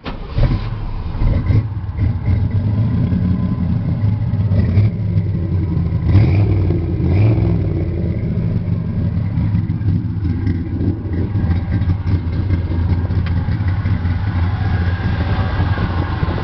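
Chevrolet 350 V8 with dual exhaust starting up and catching at once, revved a few times in the first seven seconds or so, then settling into a steady idle.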